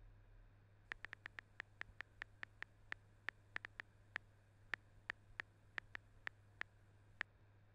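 Smartphone on-screen keyboard clicks as a message is typed: an irregular run of about two dozen short, light key clicks, roughly four a second, one for each keystroke, starting about a second in and stopping shortly before the end.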